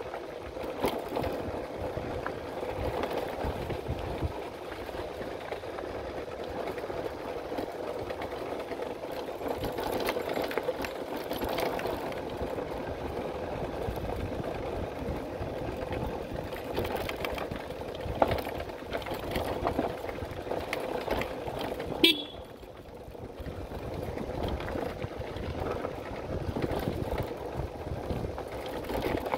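Motorcycle engine running steadily while riding, with frequent small knocks and rattles. About three-quarters of the way through there is one sharp knock, and the engine is quieter for a second or two after it.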